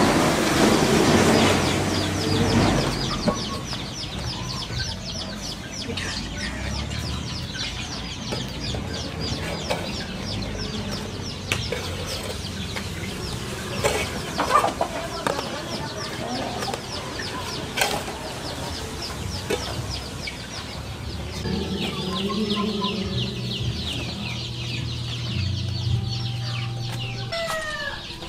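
Chickens clucking over a fast, even, high-pitched chirping. The first couple of seconds are louder, with a noisy rumble.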